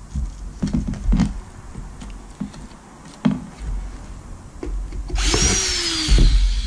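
Wooden kick-panel boards knocking against each other and the workbench as they are handled, with several sharp knocks. About five seconds in, a cordless drill starts up and runs, its whine falling in pitch as it slows.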